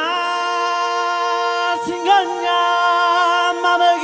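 Closing music: a long held vocal chord, sung a cappella, with a brief wavering in pitch about two seconds in.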